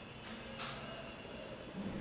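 Faint handling noise from hands gripping and turning a sneaker: two short rustles about half a second in and a soft bump near the end.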